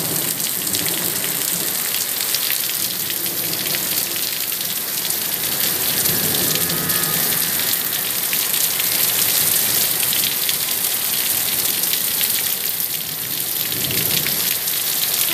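Heavy rain pouring steadily onto puddled ground and trees: a dense, even hiss made of countless drop ticks.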